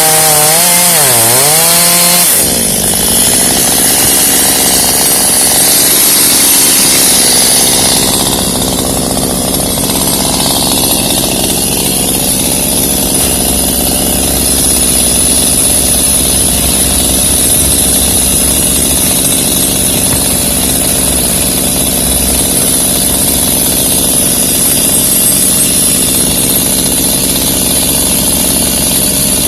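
Two-stroke chainsaw at full throttle cutting pecan wood, its engine note dipping sharply about a second in as the chain loads up. At about two seconds the saw drops to a steady, lower idle that carries on.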